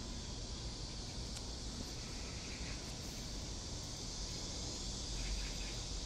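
Steady outdoor background noise: a low rumble and a faint high hiss, with no distinct sound standing out.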